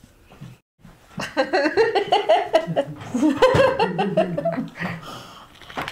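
People laughing: a run of choppy laughter starting about a second in and tailing off near the end.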